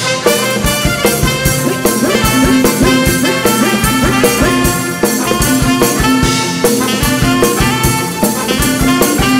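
Live band playing an instrumental break in a ramwong dance song: a brass melody over a steady, quick drum beat, heard through the band's PA mix.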